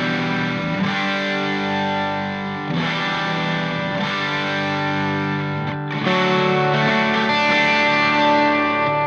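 Background music: sustained electric guitar chords with distortion and effects, the chord changing about every three seconds.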